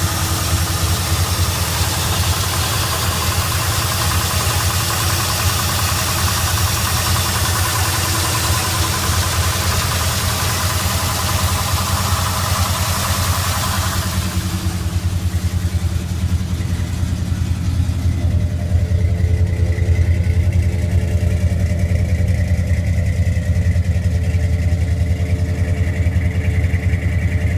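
A 1973 Ford F100's 302 V8, fed by a Holley four-barrel carburettor, idling steadily, showing an odd engine noise that the owner can't place. A loud hiss sits over the idle and cuts off suddenly about halfway through.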